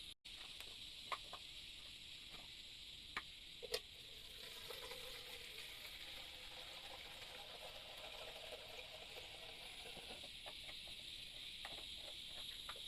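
Faint steady high-pitched insect chorus, with a few light clicks and taps in the first four seconds and a soft rustling or sizzling noise through the middle.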